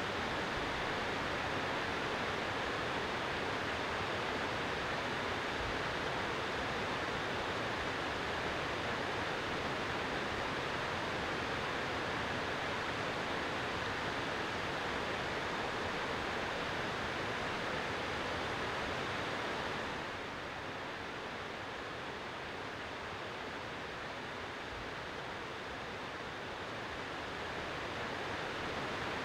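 Steady, even rushing noise of outdoor shore ambience, wind and sea together. It drops slightly about twenty seconds in.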